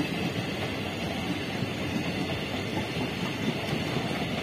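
Indian Railways passenger train coaches running past at speed: a steady rumble and clatter of steel wheels on the rails.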